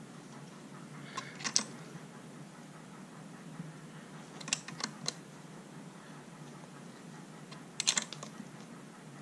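Small metallic clicks in three short clusters, about a second, four and a half seconds and eight seconds in: a wrench working the valve-adjuster nut on a Troy-Bilt four-cycle string trimmer's rocker arm, tightening the valve clearance down to five thousandths of an inch on a feeler gauge.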